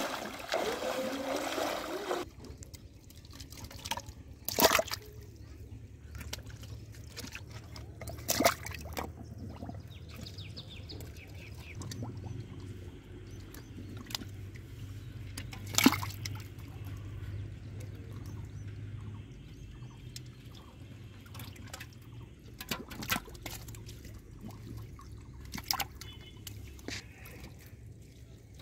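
A person wading through shallow river water, splashing, for about the first two seconds. Then water sloshing and dripping in a small muddy pit where trapped catfish stir, with a few sharp splashes (the loudest about 16 seconds in) over a steady low rumble.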